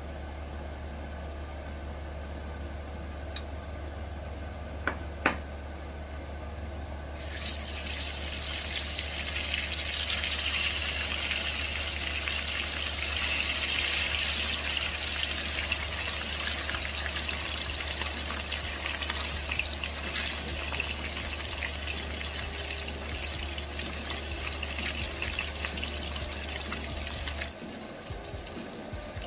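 Pieces of sea bass frying in hot oil in a frying pan: a loud, steady sizzle that starts about a quarter of the way in as the fish goes into the oil. A few light clicks of metal tongs come before it, and a steady low hum runs underneath until near the end.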